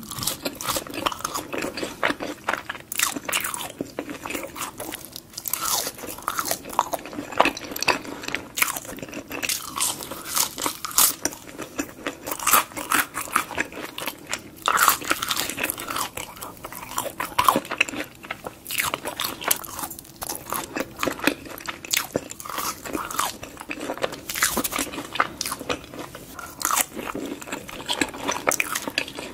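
Close-miked biting and chewing of crispy french fries: a steady run of crunches one after another.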